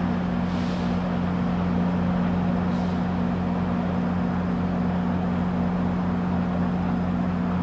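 Diesel engine of a GO Transit commuter train idling at the platform: a constant low drone that holds steady, not yet pulling away.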